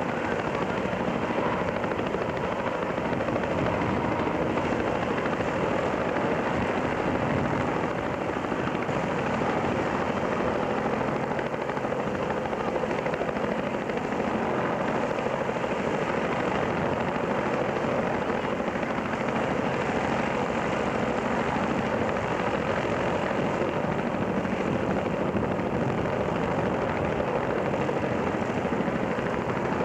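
Boeing Vertol CH-113 Labrador tandem-rotor helicopter, its two General Electric T58 turboshafts and rotors running steadily with a rapid even beat of rotor blades.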